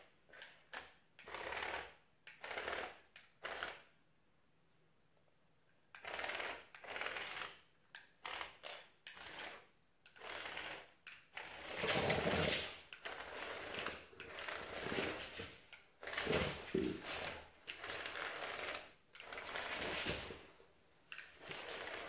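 Small electric motors and plastic gears of a building-block tracked toy robot whirring in short stop-start bursts as it is driven by remote control, with a pause of about two seconds near the start.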